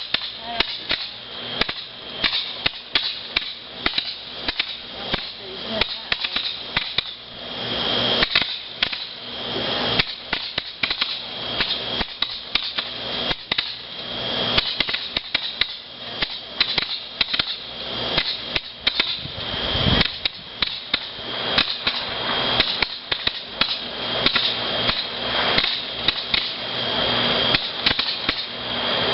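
Fireworks going off: a dense run of sharp bangs and crackles, several a second without a break.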